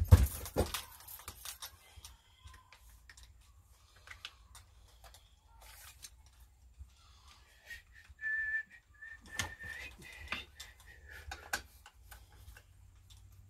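Clicks and knocks of hand tools and small parts on a Stihl 026 chainsaw as its carburetor is taken off, with a sharp clatter right at the start. About eight seconds in, a man whistles a thin tune for a few seconds.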